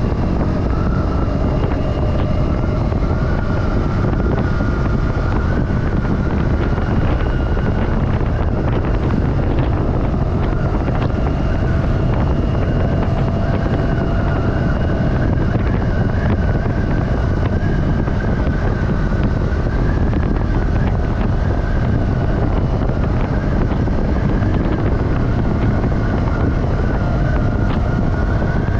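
KTM Duke 250's single-cylinder engine running under way at a fairly steady pace, its note wavering slightly up and down, with wind noise buffeting the action-camera microphone.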